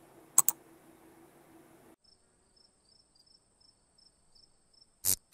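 A light switch clicks twice in quick succession as it is flipped off, then crickets chirp faintly and repeatedly in the night quiet. A sudden short, loud sound cuts in near the end.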